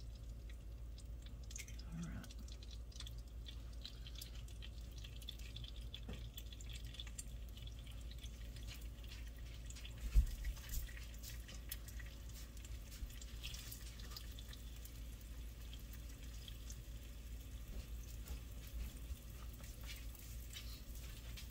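An egg frying in a hot, oil-sprayed nonstick pan: light, scattered crackling and spitting pops over a steady low hum, with one dull knock about ten seconds in.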